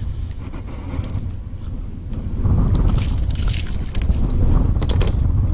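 Wind buffeting the microphone in a low rumble that grows louder about two seconds in, with scraping and rustling of handling close by and a few sharp clicks near the end.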